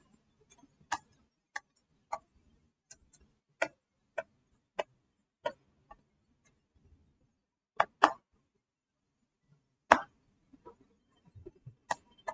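Short, sharp clicks of a pen stylus tapping on a drawing tablet as words are handwritten, irregularly spaced, mostly about half a second apart, with a few louder taps near the middle and end.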